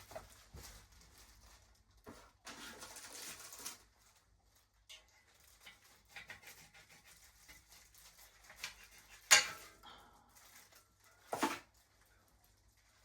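Handling sounds of bike parts and tools being worked on: a rustle, scattered small clicks, and two sharp knocks, the loudest about nine seconds in and another about two seconds later.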